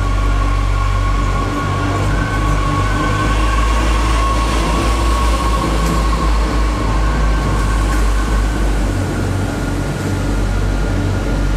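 A train running on the line, with a steady high-pitched whine over a heavy low rumble.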